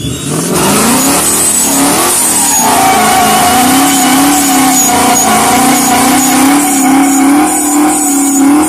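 Boosted Ford Mustang Coyote 5.0 V8 revving up hard over about two seconds, then held at high revs, its pitch wavering slightly.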